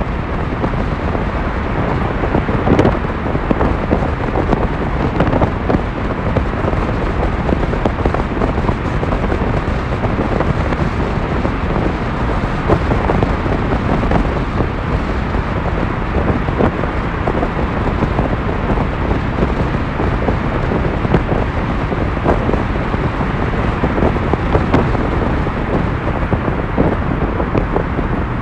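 Steady road and engine noise of a car driving through a rock road tunnel, heard from inside the car.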